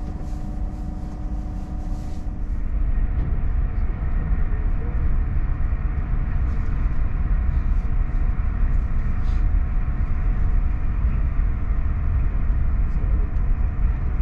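SJ X2000 high-speed train running at speed: a steady low rumble of running gear and rail noise, which grows louder about two seconds in.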